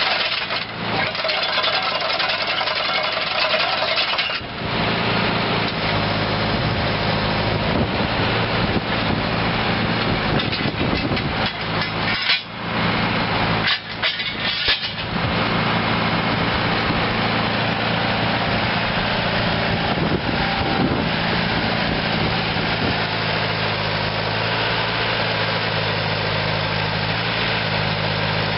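The Deutz four-cylinder turbo diesel of a Vermeer RT650 trencher running at a steady speed. About four seconds in, its low, even engine note comes in strongly and then holds, with two brief drops near the middle.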